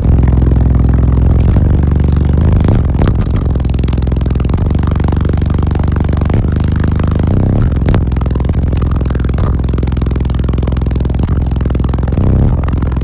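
A car audio system of six 18-inch Sundown ZV5 subwoofers playing bass-heavy music at very high volume. Deep, loud bass notes change pitch every few seconds.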